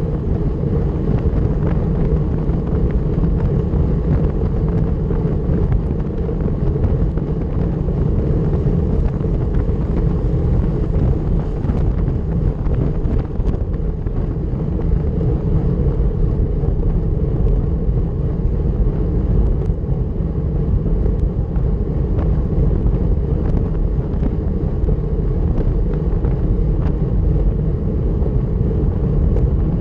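Steady rush of wind on the microphone over the road rumble of a road bike ridden at time-trial speed, with a few faint ticks.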